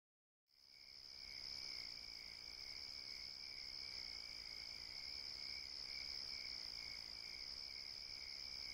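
Faint, steady chorus of crickets chirping as night ambience, fading in about half a second in.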